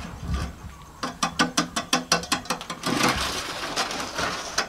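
Metal kitchen tongs clicking rapidly, about six sharp clicks a second, as they pick up chopped chives, then a denser rustling scrape with more clicks from about three seconds in.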